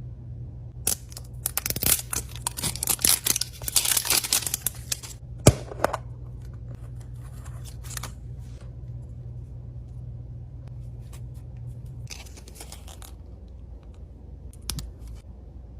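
Toy packaging being torn open and crinkled by hand: a dense run of crackling from about a second in to about five seconds, a sharp snap just after, then a shorter burst of crinkling near the end, over a steady low hum.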